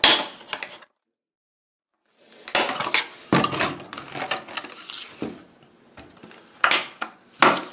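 Rigid clear plastic clamshell packaging being pried open and handled: crackling, rustling plastic and sharp clicks and snaps. The sound cuts out completely for about a second near the start, and two sharp clicks come near the end.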